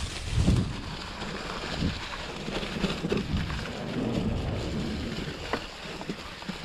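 2021 Gravity FSX Comp mountain bike rolling along a dry, leaf-covered dirt trail: tyres crunching through leaves under a low, gusty rumble of wind buffeting the camera microphone. A few sharp clicks and rattles come from the bike near the end.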